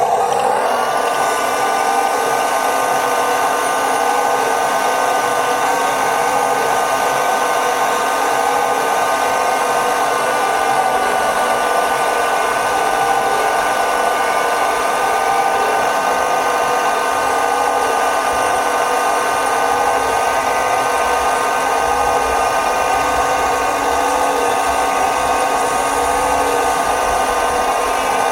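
Small electric motors and plastic gearboxes of RC model tractors whining steadily, rising in pitch just after the start and then holding an even speed.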